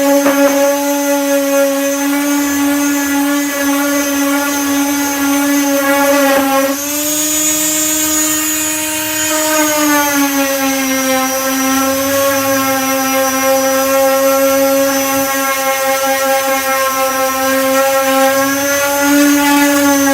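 Electric disc sander with a 240-grit disc, its motor running with a steady whine as it sands body filler. The pitch steps up about seven seconds in and drops back to its working note a few seconds later.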